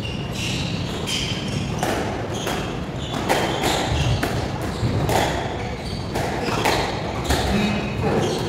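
Squash rally: the ball smacking off the strings of the rackets and the court walls in a quick back-and-forth of sharp impacts, with short squeaks of shoes on the wooden court floor in between.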